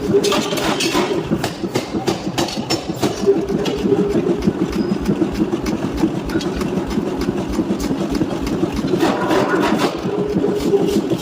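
Machinery running with a steady hum and a rapid, even clatter of knocks, several a second.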